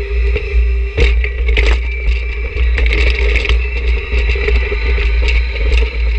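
John Deere 1026R subcompact tractor's three-cylinder diesel running under load with a steady whine, as its front snow pusher shoves and scrapes snow. Scattered knocks and scrapes come mostly in the first half.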